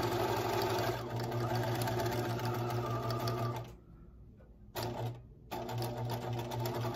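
Bernina sewing machine running at a steady speed, top-stitching through fleece. It stops a little over halfway through, gives a short burst of stitches about a second later, then runs steadily again.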